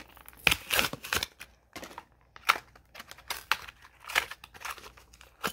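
A Hot Wheels blister card being opened, its plastic blister and cardboard backing crackling and tearing in irregular sharp bursts. The loudest come about half a second in and again around two and a half seconds.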